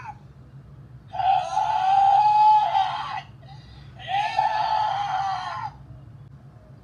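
Recorded character voice played by the CSM Sengoku Driver toy belt through its Baron face plate: two long screams, the first starting about a second in and the second about four seconds in. A low hum runs underneath.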